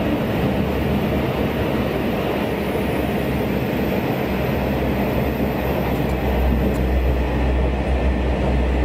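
Steady running noise of a passenger train heard from inside the car: an even rumble of wheels on rail and the car body, with no separate knocks or squeals, likely inside a tunnel.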